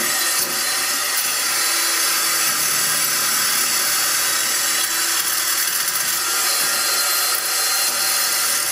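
Reciprocating saw running steadily, its blade cutting into a Macintosh Classic II's plastic case and metal chassis.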